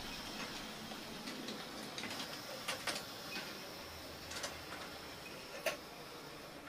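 HO scale model tram running on its track: a steady faint hiss with a handful of light, irregular clicks as the wheels pass over rail joints, the sharpest near the end.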